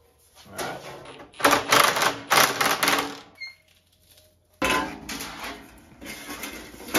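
Sheet metal clanking and rattling as it is bent into angled folds. There is a run of loud clatter about a second and a half in, a short lull with faint metallic ringing, then more clatter from just before five seconds in.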